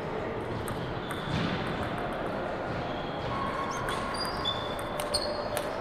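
Table tennis rally: sharp, irregular clicks of the celluloid ball off paddles and the table, with a few short high squeaks, over steady hall noise.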